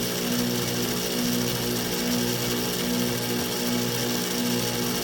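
2020 Carrier 4-ton heat pump running with a steady hum in several even tones, pulsing about once a second, over a hiss.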